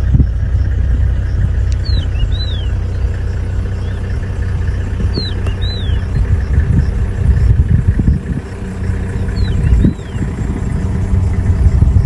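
Safari vehicle engine idling with wind rumbling on the microphone. A bird gives a short falling whistle every three to four seconds.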